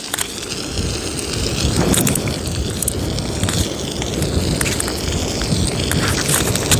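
Whole rockfish and greenling sizzling on a cast-iron grill pan, with scattered sharp crackles from the cooking fish. Strong wind buffets the microphone with an irregular low rumble.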